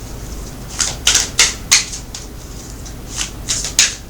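Tarot cards being handled on a table: two runs of quick, crisp card snaps and slaps, one about a second in and one near the end.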